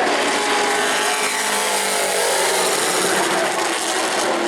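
A field of Pro Truck race trucks running at speed around an oval short track. Their engines make a steady, dense wall of noise with faint pitches that slide slightly up and down as trucks pass.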